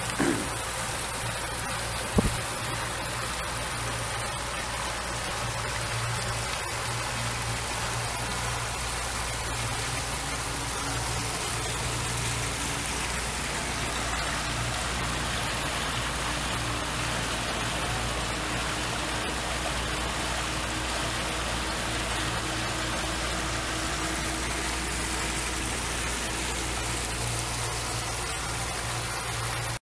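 Pontoon boat's outboard motor running at a steady cruising drone, with water rushing and splashing along the pontoons. A single short knock about two seconds in.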